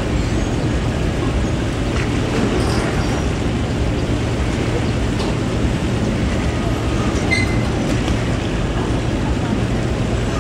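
Moored passenger ferry's engines running steadily, a constant low hum under an even wash of machinery noise.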